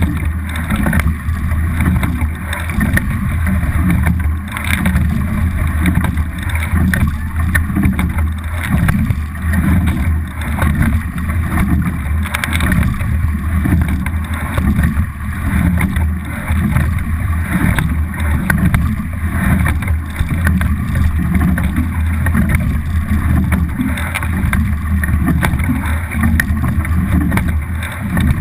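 Water rushing and splashing along the hull of a rowing double scull under way, picked up by a camera fixed to the boat, over a steady low rumble. The noise swells and eases in a regular rhythm with the rowing strokes.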